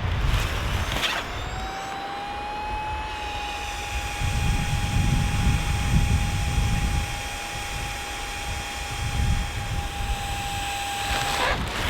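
Gusting blizzard wind buffeting the microphone, with a steady high whistling tone that starts about a second in, rises slightly, then holds before cutting off suddenly near the end.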